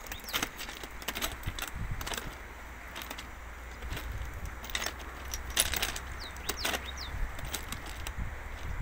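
Footsteps crunching on loose railway ballast stones, an uneven crunch every half second or so. A bird gives a few short falling chirps near the start and again about seven seconds in.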